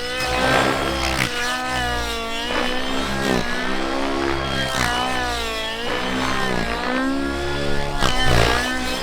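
OS 91 nitro engine with an Absolute CNC tuned pipe, running at high revs in a flying radio-controlled model. Its pitch swoops up and down repeatedly as the load and the model's passes change.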